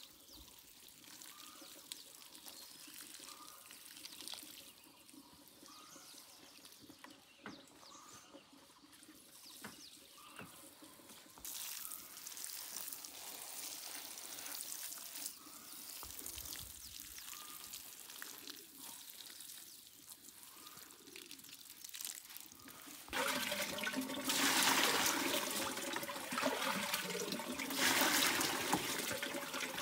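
Running, pouring water: faint at first, a little louder from about 11 seconds in, then much louder about 23 seconds in.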